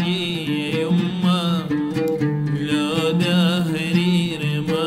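A man singing an Iraqi song in Arabic with wavering, ornamented vocal lines, accompanying himself on a plucked oud.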